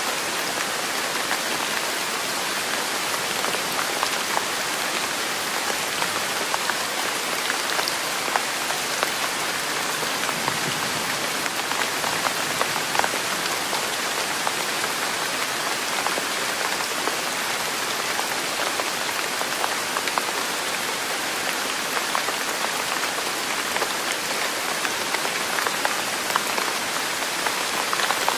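Steady rain falling on a surface, an even hiss scattered with many small drop hits.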